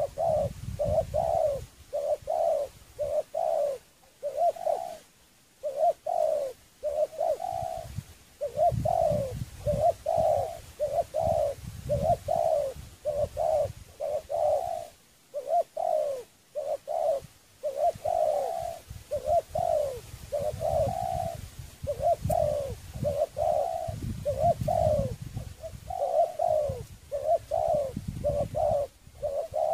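Spotted dove cooing in a long series of short coos, about two a second, each note falling in pitch, in phrases broken by brief pauses. A low rumble comes and goes underneath.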